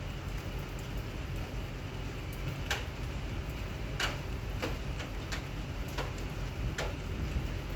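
Rain falling steadily, with about half a dozen irregular sharp ticks of drops striking a hard surface.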